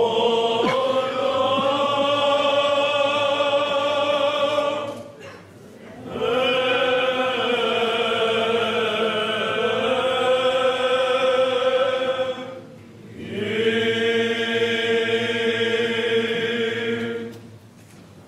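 Byzantine chant sung by a group of chanters: three long, drawn-out phrases with brief pauses between them, the last ending shortly before the end.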